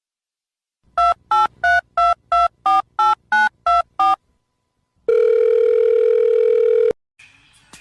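Telephone keypad tones: eleven short beeps, about three a second, as a number is dialled. After a short pause comes one steady, loud tone lasting about two seconds, which cuts off suddenly.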